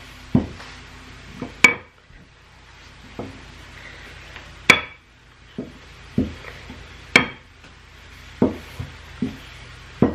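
Wooden rolling pin rolling tortilla dough on a wooden board, knocking wood on wood in sharp clacks every second or so, three of them louder and ringing briefly.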